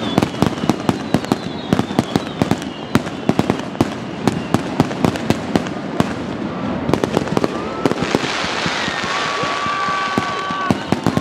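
Fireworks bursting in rapid, irregular succession, many sharp bangs and crackles overlapping. In the last few seconds a hissing rush rises, with a couple of steady whistling tones over it.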